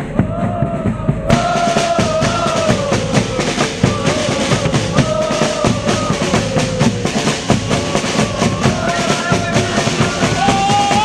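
Football supporters' drums beating a fast, steady rhythm while a crowd sings a chant in unison over it.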